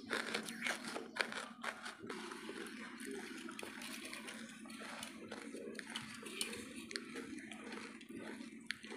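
Hardwood charcoal crunching and crackling: a dense run of sharp crunches in the first two seconds, then fainter, scattered crackles.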